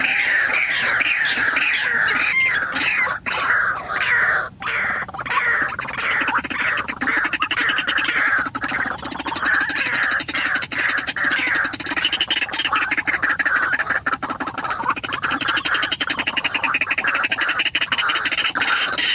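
White-breasted waterhen calling: a rapid, continuous run of harsh, repeated falling notes that turns into a fast, pulsing croak from about halfway through.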